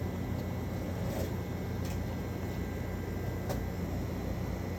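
Steady low hum and hiss of a shop's background noise, likely air handling, with a few faint clicks.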